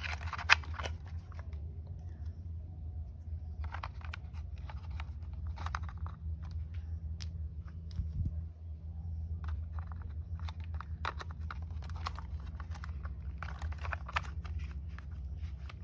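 Small plastic clicks and scrapes as tiny toy wheels are pushed onto the metal axles of a plastic toy bus, with a sharper click about half a second in, over a steady low hum.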